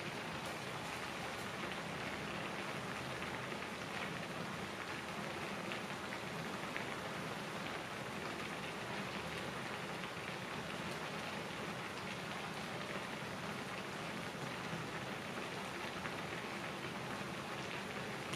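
Udon broth boiling in a thin aluminium pan on a portable gas cassette stove: a steady, even bubbling hiss with fine crackles.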